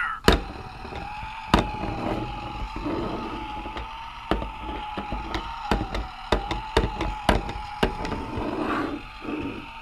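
A die-cast Zeg toy monster truck being handled and bumped around: irregular sharp clacks and knocks, some in quick clusters, over a steady faint electronic hum.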